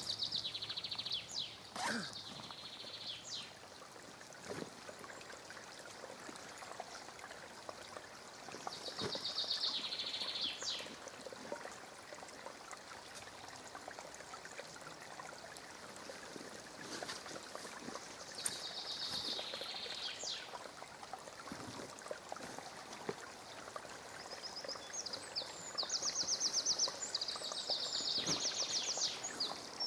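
Small woodland stream trickling steadily, with a songbird singing a short, high trilled song four times, about nine seconds apart. A few light clicks and knocks come and go.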